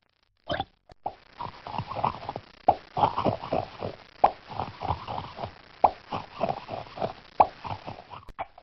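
Cartoon plop sound effects: a couple of single plops, then a quick, irregular run of many plops lasting about seven seconds over a faint hiss.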